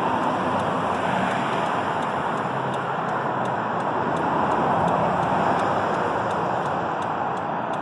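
Steady rushing background noise that holds an even level, with no distinct events.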